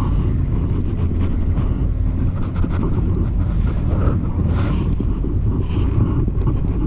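A steady low engine drone that holds an even pitch, with some rushing noise over it.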